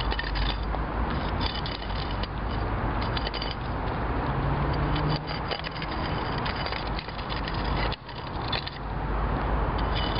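Pick-axe striking and scraping stony, gravelly ground in repeated blows, over a steady low rumble.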